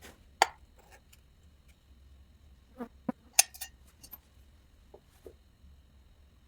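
A few sharp, separate clinks and taps of hard objects, likely metal tools handled at a sand-casting bench. One loud strike comes about half a second in, a quick cluster follows around the middle, and fainter taps come near the end.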